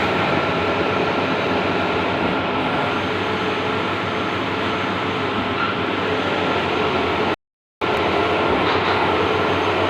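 Large-format outdoor banner printer running with a steady mechanical whir and hum, briefly cutting out for a moment about seven and a half seconds in.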